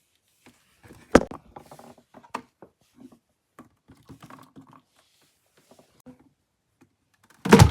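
Small objects being handled and set down by hand, making irregular light taps, clicks and rustles. There is a sharp knock about a second in and a heavier thump near the end.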